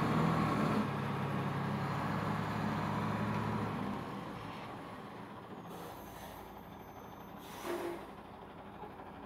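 Diesel engine of a loaded sand dump truck running as it moves past close by, fading after about four seconds.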